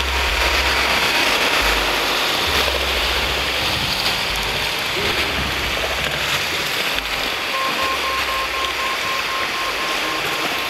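Steady rushing noise of ocean surf breaking on a beach, with a low rumble that swells and drops away. A faint steady high tone comes in about three-quarters of the way through.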